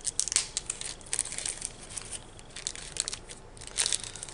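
Clear plastic packet crinkling as it is handled by hand, with irregular sharp crackles that are loudest just after the start and again near the end.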